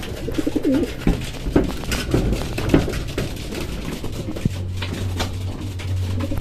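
A plastic pigeon drinker being set down on a concrete loft floor, giving a few sharp clicks and knocks, with a pigeon cooing briefly near the start.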